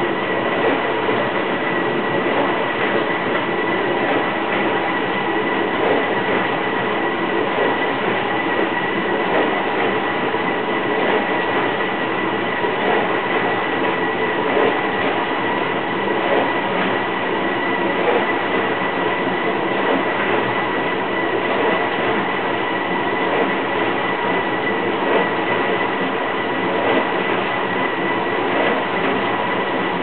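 Steady mechanical noise: a constant whirring hum with a thin high whine held over it, unchanging throughout.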